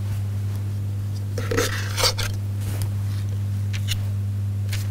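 Metal tablespoons scraping and tapping as sticky cookie dough is scooped from a steel mixing bowl and pushed off into small heaps on a baking-paper-lined tray. There are a few light clicks and one longer scrape about one and a half to two seconds in, over a steady low hum.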